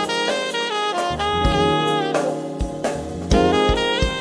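Jazz music: a saxophone-like horn plays a stepping melody over drum and bass hits.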